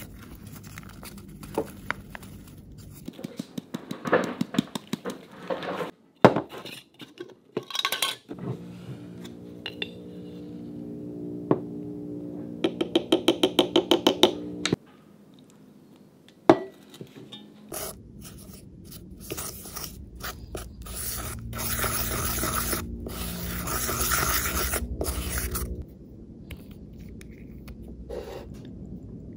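Kitchen handling sounds in short separate takes: a paper bag rustling as powdered green clay is poured into a ceramic bowl, and a spoon scraping and knocking against a bowl, including a quick run of about five strokes a second near the middle.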